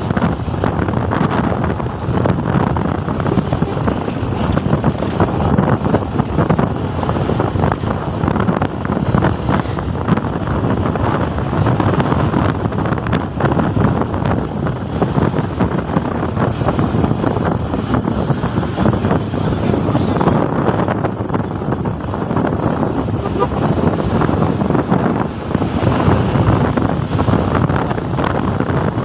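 Wind buffeting the microphone of a moving motorcycle, with engine and road noise beneath it; a loud, steady rush.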